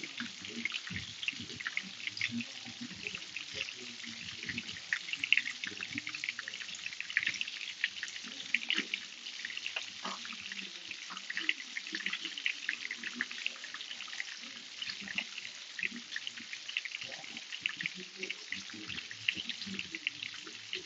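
Garlic butter shrimp sauce sizzling in a pan with pasta mixed through it: a steady crackle of many small pops.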